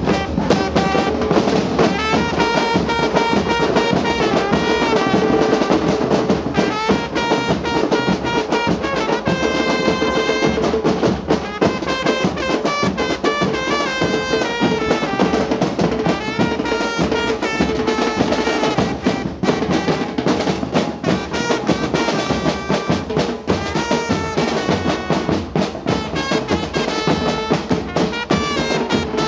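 Argentine street murga band playing: a trumpet carries the melody over steady pounding murga bass drums (bombos con platillo, bass drums with cymbals mounted on top).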